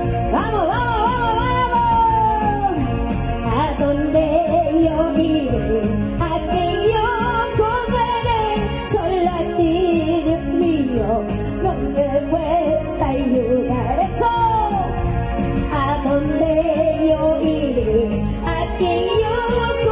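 Christian praise song: a solo voice sings a wavering melody over a band with a steady beat.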